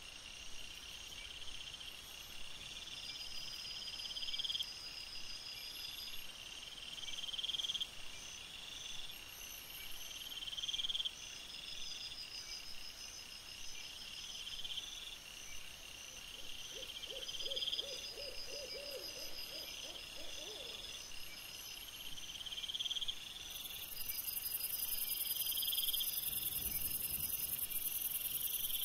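Night insects chirping: a cricket-like pulsed chirp repeats about every second and a half. A short, low pulsed call comes in about two-thirds of the way through, and a steady high hiss starts near the end.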